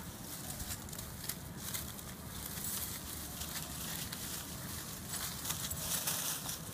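Puppies scampering through leafy ground cover, the leaves rustling and crackling in quick irregular bursts over a steady low rumble.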